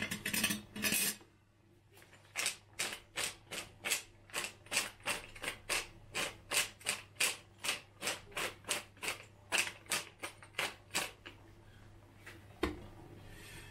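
Wooden spice mill being twisted over a pan, grinding in a steady run of sharp clicks, about three a second, for roughly nine seconds.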